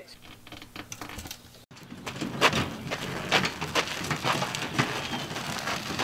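Hand truck loaded with a washing machine rolling over dirt and gravel, a steady crunching and clicking of its wheels with footsteps, starting abruptly about two seconds in. Before it, faint light clicks.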